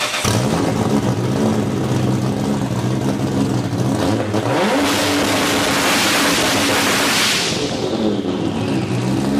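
Car engine running steadily, then revving higher about halfway through, with a rushing noise swelling and fading near the end before the sound cuts off suddenly.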